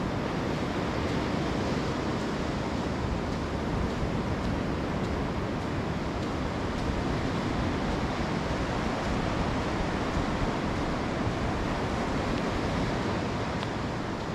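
Steady rush of surf breaking along a sandy shore, mixed with wind on the microphone.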